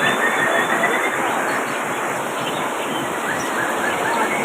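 Heavy rain pouring down steadily, a dense even hiss, with faint bird calls showing through.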